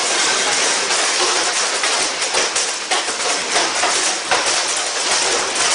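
Heavy hail drumming on a house's roof and windows, heard from inside: a dense, steady rattle full of sharp clicks of hailstones striking.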